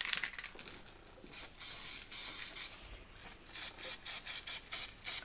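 Aerosol spray can spraying in bursts: a few short sprays with one slightly longer one, then after about a second's pause a quick string of short puffs, about four a second.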